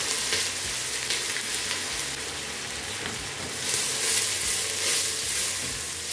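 Chopped red onions frying in hot oil in a stainless steel stockpot: a steady sizzle, with the scrape of a wooden spoon stirring them, swelling briefly about four seconds in.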